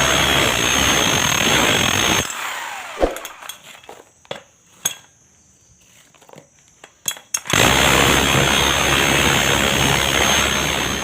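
Electric power tool running steadily with a high whine, switched off a little over two seconds in and winding down. A few sharp clicks and knocks follow, then the tool starts up again about seven and a half seconds in.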